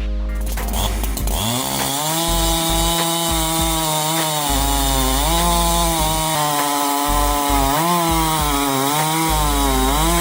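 Bommer AG SX82 two-stroke chainsaw engine revving up about a second and a half in, then running at high revs with its pitch sagging and recovering several times. Background music plays underneath.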